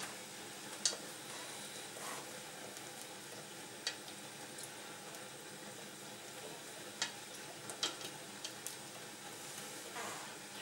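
Wooden whisk stirring a thickened cream sauce in a stainless steel saucepan, with a few sharp clicks where the whisk knocks against the pot, over a steady faint hiss.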